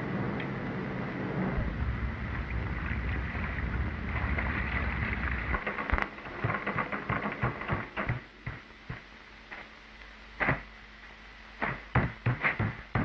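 Sound effects on a 1945 film soundtrack: a steady rumbling noise for about six seconds, then a string of sharp, irregular knocks and bangs.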